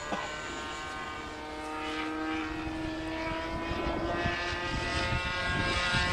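O.S. .61 FX glow engine of a radio-controlled model airplane running in flight, a steady high-pitched propeller drone that grows gradually louder as the plane comes closer.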